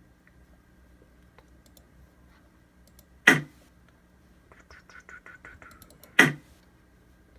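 Computer keyboard and clicks at a desk: a loud sharp key press or click about three seconds in, a quick run of about eight light key taps, then another loud click near the end.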